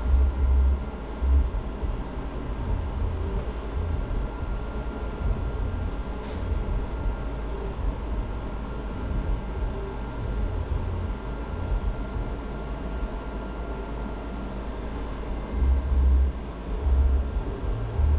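Skin-cooling machine blowing cold air with a steady hum and a faint constant tone, with a few low thumps near the start and near the end.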